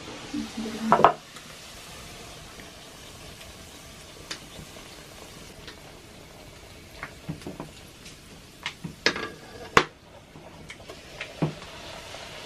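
A round of dough frying in a metal wok, with a steady light sizzle. A few sharp clinks and knocks of a metal utensil against the pan come through it, the loudest about ten seconds in.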